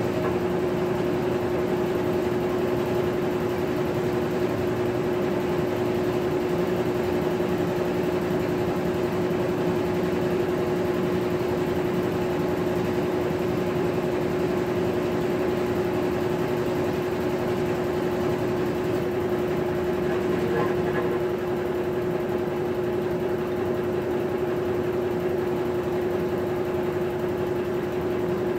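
Maytag top-load agitator washing machine running: a steady mechanical hum with one constant tone.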